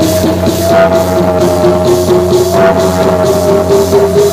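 Loud music with a steady drum beat, a held synth or guitar tone and a slowly moving lower melody line over a steady bass.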